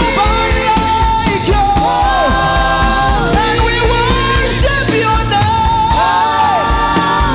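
Live gospel worship music: voices hold long sung notes that bend at their ends, over a band with a steady beat.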